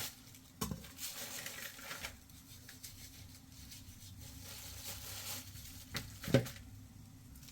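Rustling, scraping handling noise with two sharp knocks, the louder one about six seconds in.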